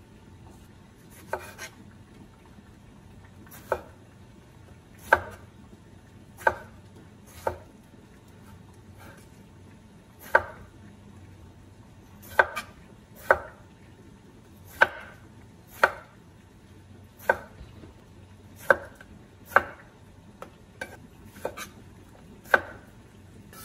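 Chef's knife slicing strawberries on a wooden cutting board: about twenty separate short knocks of the blade meeting the board, at an uneven pace of roughly one a second, some coming in quick pairs.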